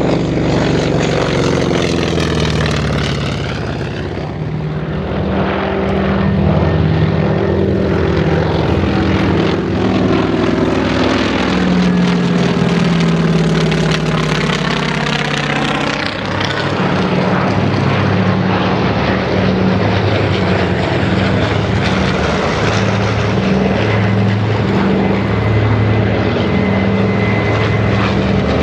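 Vintage radial-engined naval propeller aircraft flying past one after another. First a single-engine SBD Dauntless dive bomber, then a twin-engine C-1A Trader, then a twin-engine PBY Catalina flying boat approaching. The propeller and engine drone is steady and loud, and it swells and shifts in pitch as each plane passes, with a clear change about two-thirds of the way through.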